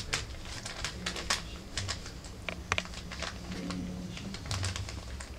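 Irregular crinkling and clicking of newspaper as rough collie puppies scramble and scuff over it with their paws while playing with a plush toy.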